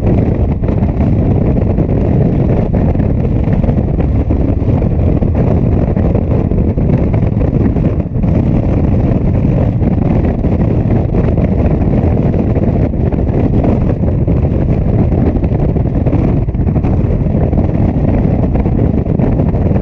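A Yamaha FJ-09's three-cylinder engine running steadily on the road, largely covered by loud rushing wind noise on the microphone at road speed.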